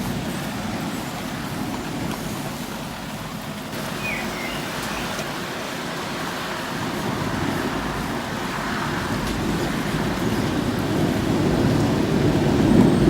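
Steady rain hiss with a low rumble of thunder that builds over the second half and grows loud near the end.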